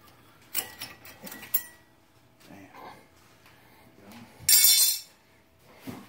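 Small metal brake parts being handled: a few light clicks and taps, then one loud clink with a brief high ring about four and a half seconds in, as thin metal pad shims are pulled out and set down.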